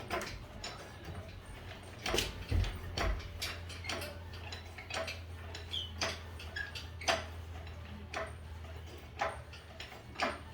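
Engine hoist (cherry picker) being worked with an engine hanging from it: irregular metallic clicks and ticks, with a steady low rumble coming in about two and a half seconds in.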